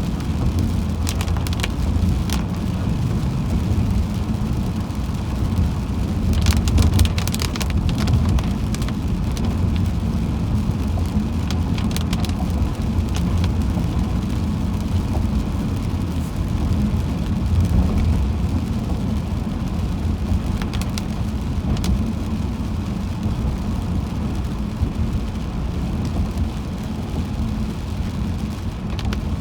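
Car driving in rain, heard from inside: a steady low road and engine rumble, with a few short bursts of rain and spray hiss against the car.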